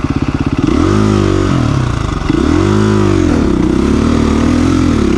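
KTM 350 EXC-F's single-cylinder four-stroke engine idling, then revved up and back down twice before it is held at steady, slightly wavering revs as the bike pulls away up a loose gravel slope.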